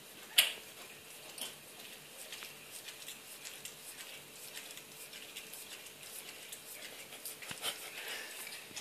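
Bull terrier licking and nibbling a cat's fur: a run of irregular tongue and mouth clicks, with one louder click about half a second in.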